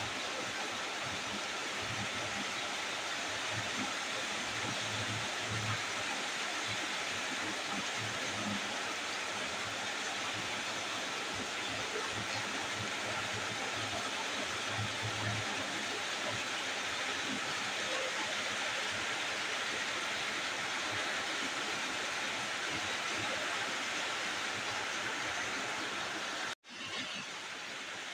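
Chicken frying in a pan: a steady sizzling hiss, broken by a brief dropout near the end.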